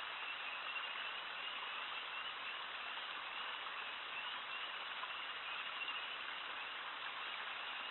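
Steady rushing noise of water flowing through the breached beaver dam, with a faint, high, wavering chirp repeating over it.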